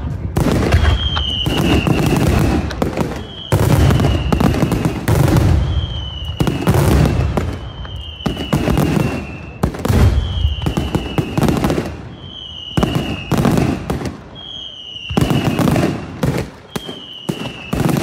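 Daylight fireworks display: aerial shells bursting in rapid, rolling volleys of loud bangs and crackling. A short falling whistle-like tone repeats about once a second above them.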